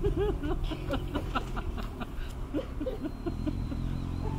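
A person laughing in short repeated bursts for the first two and a half seconds or so, over a steady low rumble.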